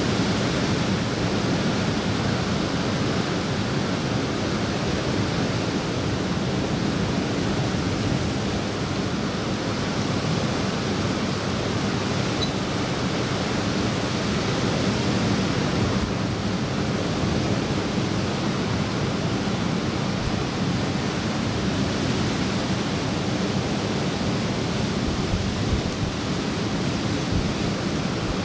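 Steady, even rush of water noise from sea surf and light rain falling on a pool, with no single sound standing out.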